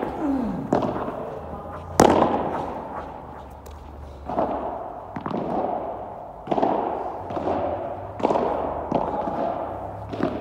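Padel ball being struck by rackets and bouncing off the court and walls: about ten sharp hits, each with a long echo in a large covered hall.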